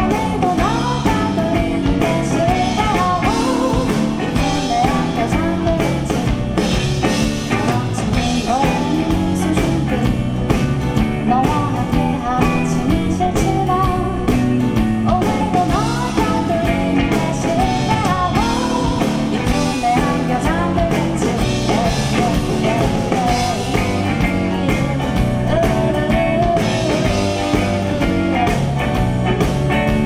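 Live music: a woman singing a gliding melody over acoustic guitar and a full accompaniment.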